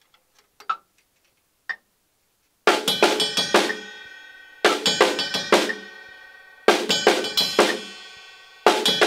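Drum kit played with sticks: a short snare and cymbal-bell figure repeated four times, about every two seconds, starting a few seconds in, with the bell ringing on between repeats. A few light taps come before it.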